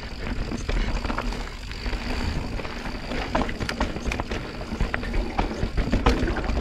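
Mountain bike descending a rough singletrack trail: irregular knocks and rattles from tyres and frame over roots and rocks, over a steady wind rumble on the action camera's microphone.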